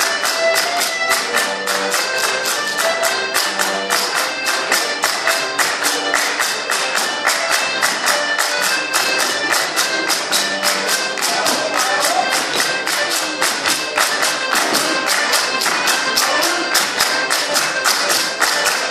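Fast Circassian folk dance music with a steady beat of hand claps from the dancers' circle.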